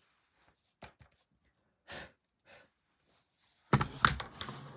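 Small handling noises at a work table: a few light clicks and a couple of brief rustles, then a loud cluster of knocks and clatter near the end.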